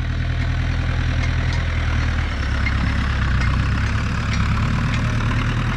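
Diesel tractor engine running steadily under load while it pulls a stubble cultivator across the field close by.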